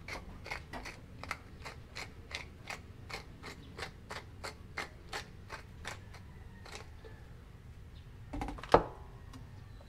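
Wooden pepper mill being twisted to grind black pepper, its mechanism clicking at about three clicks a second and stopping about seven seconds in. A single loud knock comes near the end.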